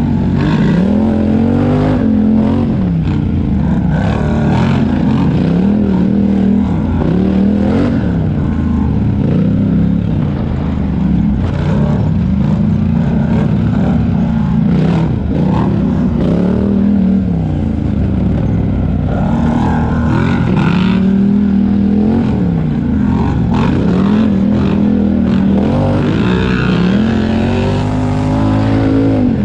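Racing 4x4 ATV engine under hard throttle, its pitch rising and falling every second or two as the throttle is opened and closed, with scattered knocks and rattles.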